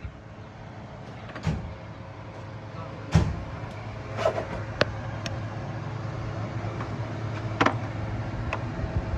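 A steady low mechanical hum that grows stronger about three seconds in, with several sharp knocks and clanks, the loudest about three seconds in.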